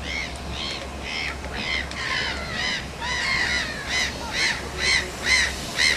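A bird calling over and over, about two calls a second, each a short rising-and-falling note; the calls get louder over the last two seconds.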